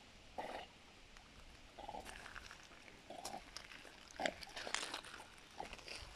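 A dog swimming with a retrieved object held in its mouth, breathing hard through its nose in short, faint puffs, about half a dozen of them at irregular intervals.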